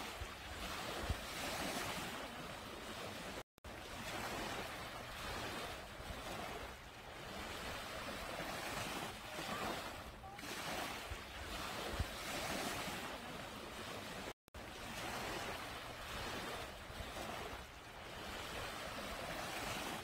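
Small waves breaking and washing up a sandy beach, the foamy wash swelling and easing every few seconds. The sound cuts out for an instant twice.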